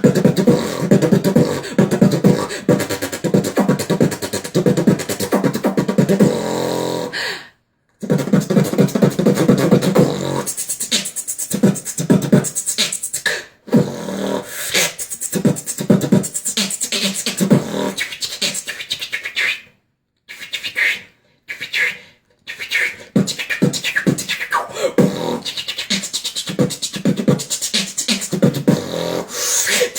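A person beatboxing: a fast run of mouth-made drum sounds (kick, snare and hi-hat-like clicks and hisses), stopping briefly about a third of the way in and several times around two-thirds of the way through.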